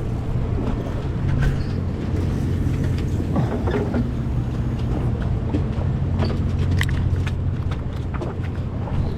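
A sportfishing boat's engine droning steadily at a low pitch, with scattered short clicks and knocks on deck.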